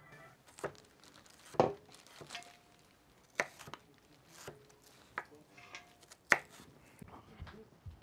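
Kitchen utensils and bowls knocking and clinking as cooking is done, a scatter of about five sharp knocks, a few with a brief ring, the loudest about six seconds in.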